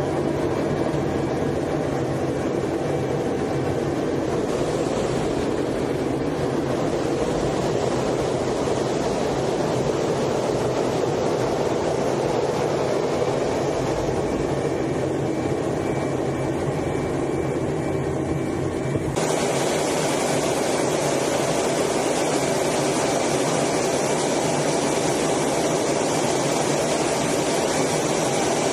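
Steady rush of jet engine and airflow noise heard inside the cockpit of a Blue Angels F/A-18 Hornet in flight. About 19 seconds in, the sound switches abruptly to a brighter, hissier rush.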